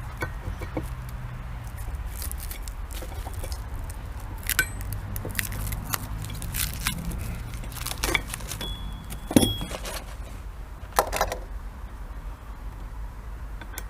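Metal clinks and knocks from Allen keys, screws and parts of an air-gun bench rest being handled and screwed together, a few sharper knocks scattered through, with a short high squeak near the middle over a steady low hum.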